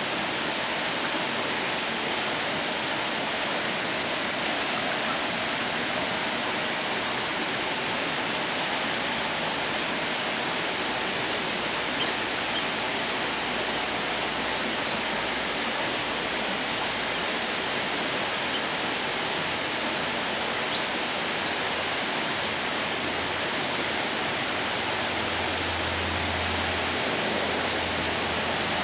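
Steady rush of flowing water, an even, unbroken hiss.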